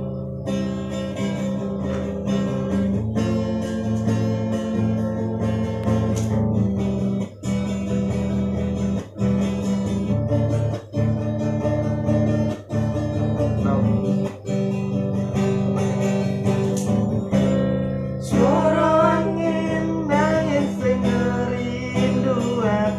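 Acoustic guitar strummed through a song intro, with short regular breaks between chords. About eighteen seconds in, a man begins singing over the guitar.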